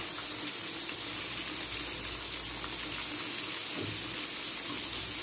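Chicken fillets frying in hot vegetable oil in a pan: a steady sizzle.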